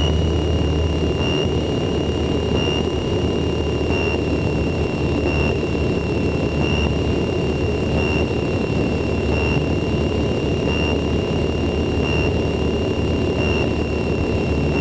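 Steady drone of a light aircraft's engine and propeller heard inside the cockpit, with a thin high whine that pulses about once every second and a half.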